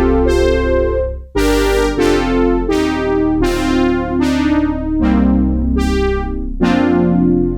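Oberheim Matrix 12 analog polyphonic synthesizer playing a run of chords on a bright, electric-piano-like patch: each chord is struck with a bright attack whose upper tones fade while the lower notes hold, with a new chord every second or so.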